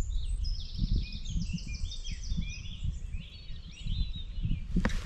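A small songbird singing a quick run of high chirps and trills, over a steady low rumble of wind and handling noise on the microphone.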